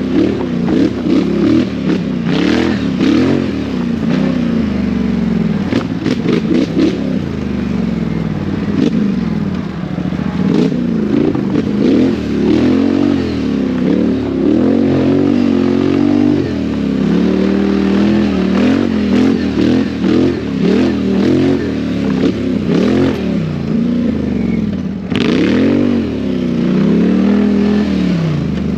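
ATV (quad bike) engine revving up and down repeatedly under racing throttle over rough off-road ground. Knocks and rattles come through here and there, with a sharp one near the end.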